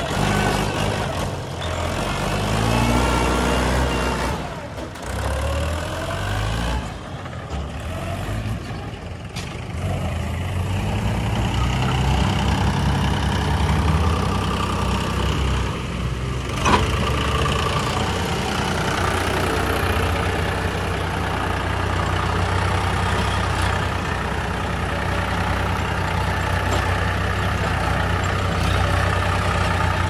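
Diesel tractor engines revving with rising and falling pitch for the first several seconds, then running steadily. One sharp knock is heard a little past halfway.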